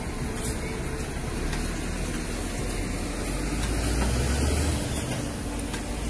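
Road traffic passing close by: a steady rumble of car engines and tyres, swelling as a vehicle goes past about four seconds in.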